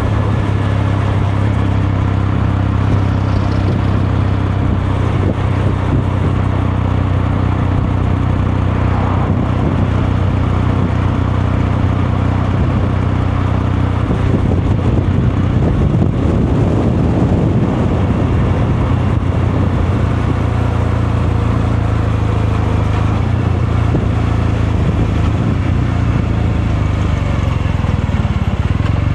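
Kawasaki Meguro K3's 773 cc air-cooled parallel-twin engine and exhaust running steadily under way, the engine speed holding nearly constant.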